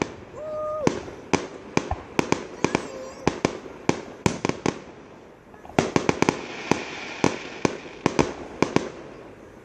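Fireworks going off in a dense run of sharp cracks and pops at an uneven pace, thinning briefly about five seconds in and then picking up again.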